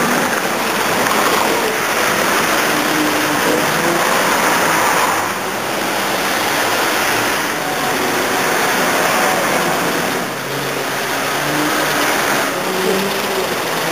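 Steady rushing noise of street traffic, with cars passing close by on the road.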